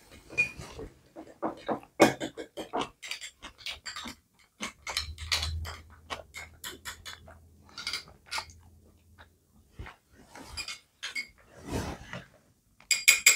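Light, irregular clicks and taps of a utensil against a small dish, with some scraping, as wasabi powder is stirred with water into a paste.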